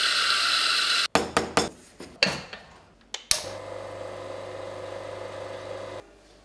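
Coffee grinder running for about a second, then several sharp metallic knocks and clicks as the portafilter is handled and locked into the espresso machine. The espresso machine's pump then hums steadily for about three seconds while the shot pours, and stops suddenly.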